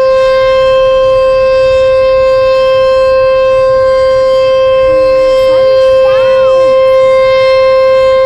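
Sentry 14VB outdoor warning siren sounding a steady, unwavering tone at full pitch. A short voice-like sound rises and falls over it a little past the middle.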